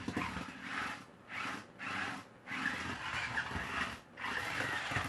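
Small toy RC stunt car's electric motors and gears whirring in short bursts as the throttle is worked on and off, about five spurts with brief breaks between.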